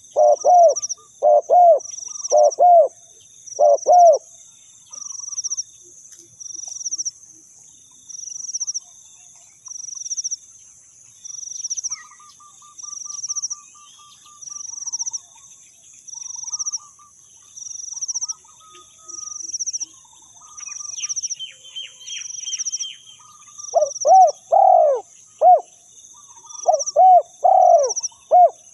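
Spotted dove cooing in short runs of repeated low notes, at the start and again near the end. A high buzzing that pulses about once a second runs underneath, and faint chirps from other birds come in the quiet middle.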